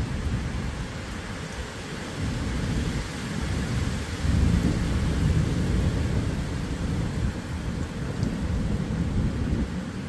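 Thunderstorm: steady rain with a low rumble of thunder that swells about four seconds in.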